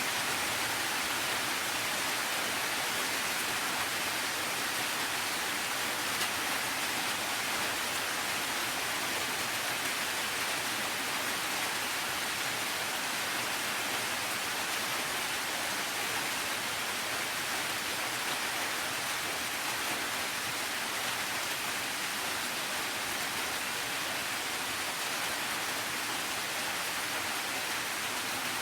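Steady rain falling: an even, unbroken hiss with no single drops or gusts standing out.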